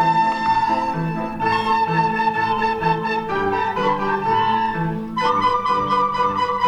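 Instrumental music: a flute melody of long held notes over a bass line that steps from note to note.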